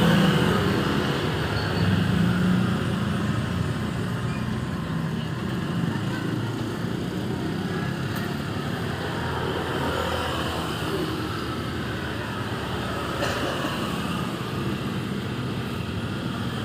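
Road traffic passing: vehicle engines running and tyre noise, with a heavier engine rumble in the first couple of seconds.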